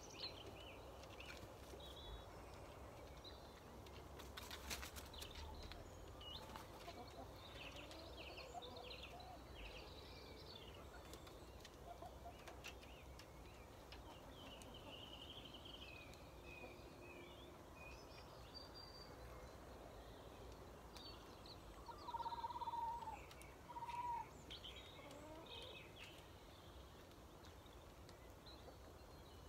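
Faint chirping and twittering of birds throughout, with two louder, short pitched calls a little over twenty seconds in.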